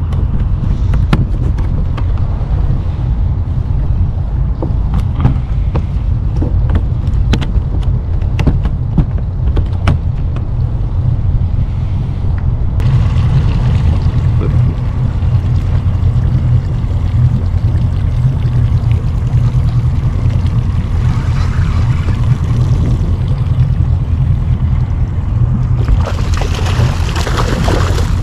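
A steady low rumble with scattered sharp clicks. Over the last two seconds, a hooked salmon splashes and thrashes at the water's surface.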